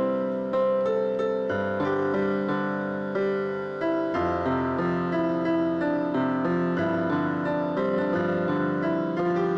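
Piano music playing slow, held chords, with the bass note changing every two or three seconds.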